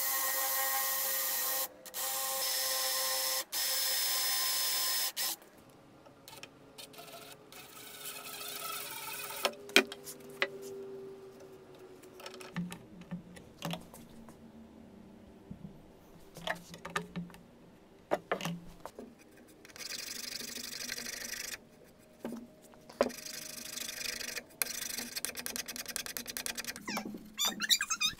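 Cordless drill running in three bursts with brief gaps, boring a hole into the wooden rifle stock for a reinforcing screw. It is followed by softer, scattered tool sounds: clicks, knocks and short stretches of rasping noise.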